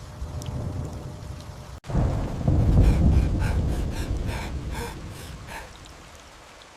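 Storm sound: a deep rumble of thunder over rain, starting abruptly about two seconds in and slowly fading. A run of about ten short rhythmic pulses, some four a second, sits over the rumble.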